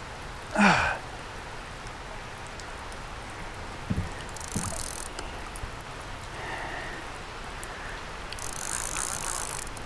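Level-wind reel's drag slipping and paying out line in two short spells, about four seconds in and near the end, as a big blue catfish runs against the rod. A short low grunt comes just under a second in, over a steady patter of rain.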